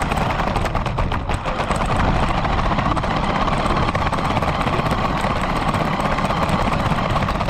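RC car driving, heard from a camera mounted on the car itself: a steady motor and wheel noise with fast rattling and clicking from the road surface.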